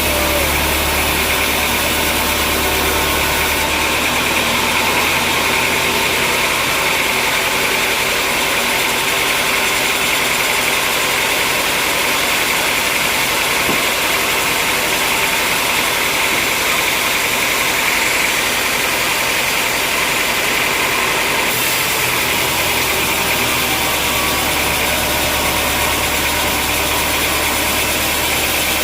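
Sawmill machinery running steadily, a continuous mechanical drone; its low hum drops away about four seconds in and comes back after about 22 seconds.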